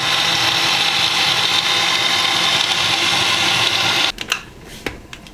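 Bosch countertop blender running at high speed, puréeing vegetables and water into a smooth liquid. It cuts off suddenly about four seconds in, followed by a couple of faint knocks.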